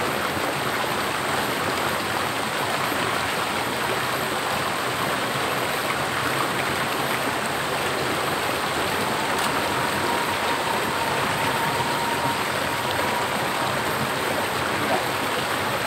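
Small river cascade pouring into a rocky pool: a steady, even rush of water with no let-up.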